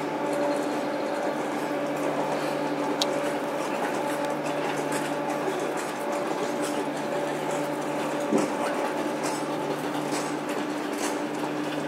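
Freight train of covered wagons rolling past: a steady rolling rumble with a held hum and scattered clicks from the wheels, and one sharper knock about eight seconds in.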